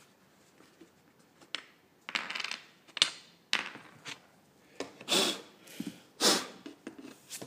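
Metal drilling-template rail and its stops being handled and lifted off a board: a run of separate clinks, knocks and short scrapes, louder in the second half, with no drill running.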